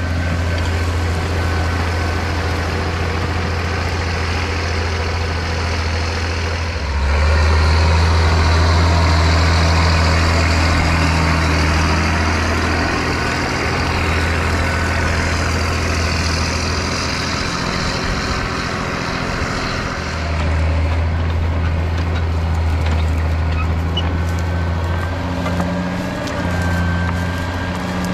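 International Harvester 5088 tractor's turbocharged six-cylinder diesel engine running steadily under load while it pulls a five-bottom moldboard plow. It grows louder for a few seconds about a quarter of the way in.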